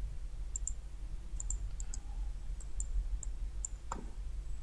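Computer mouse button clicking about a dozen times, light clicks, many in quick pairs like double-clicks, over a low steady hum. A fuller knock comes about four seconds in.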